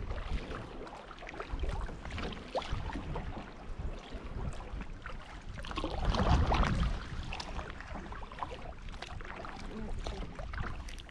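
Water splashing and sloshing against a kayak as it is paddled through small wind-driven waves, with wind rumbling on the microphone. The splashing swells briefly about six seconds in.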